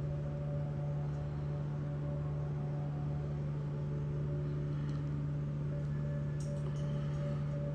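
Steady low hum with a few overtones over a faint hiss, with a couple of faint ticks near the end.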